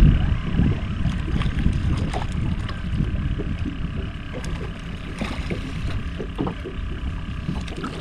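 Wind blowing across the microphone on an open boat, with small waves lapping against the hull and scattered light ticks.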